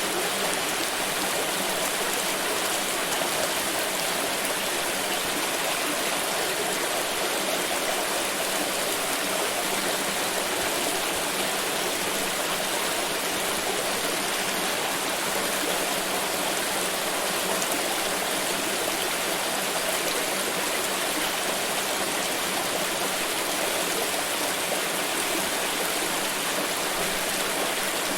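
Water flowing steadily over rocks in a stream, a constant rushing and babbling with no breaks or single splashes.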